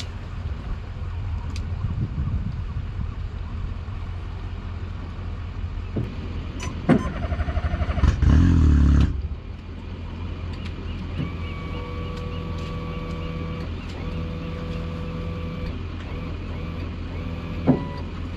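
Small boat's engine running with a steady low hum over wind and water noise. About seven seconds in there is a quick run of ticks, then a loud buzzing burst lasting about a second. Later a steady pitched tone sounds in several stretches, each a second or two long.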